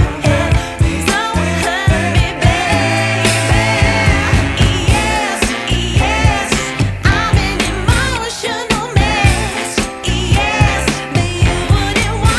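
Background music: a pop or soul song with a sung vocal over a steady beat.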